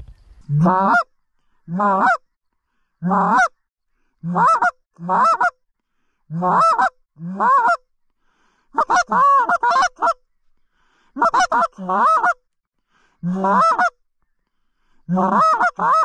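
Goose call blown in a loud series of honks, singly and in pairs, each note starting low and breaking up high, with a quick run of notes about nine seconds in, calling to geese in the air to draw them in.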